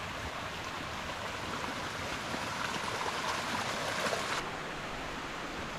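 Steady rushing of a mountain creek. About four seconds in its top hiss drops away and the sound turns a little duller.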